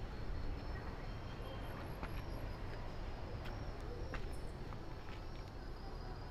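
Night-time outdoor ambience: a steady low rumble with faint, high, even chirring like insects, and a few faint clicks.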